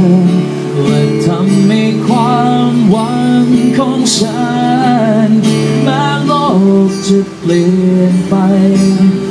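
A man singing a song live into a microphone, accompanying himself on a strummed acoustic guitar.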